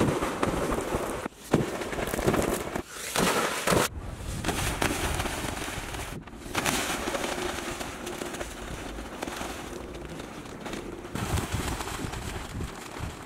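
Water splashing and churning as people swim and drop off a slide into a small pool. The splashing is loudest in the first six seconds, broken by several sudden cut-offs, then goes on steadier and a little softer.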